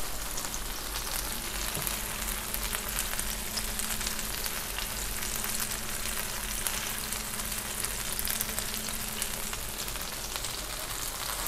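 Cheddar and mozzarella and sausages frying on a hot griddle plate: a steady sizzle with fine crackling as the cheese melts.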